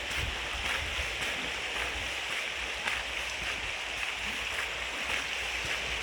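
A stream rushing steadily over rocks, with faint light ticks scattered through it.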